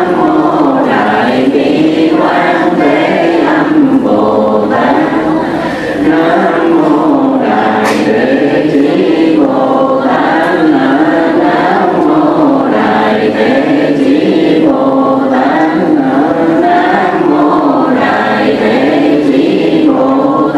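Monks and congregation chanting together in unison: a slow, repeating melodic recitation of the Buddha's name (niệm Phật), many voices blending.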